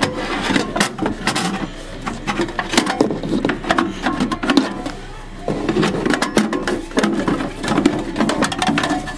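Sheet-metal coin box of a vending machine being pulled out and handled: a run of sharp metallic clanks, knocks and rattles, some pauses between them.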